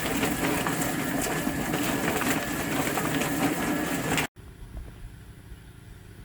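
Poultry plucker running: a steady motor hum under a dense clatter as the birds tumble in the drum. It cuts off abruptly about four seconds in, and a much quieter low hum follows.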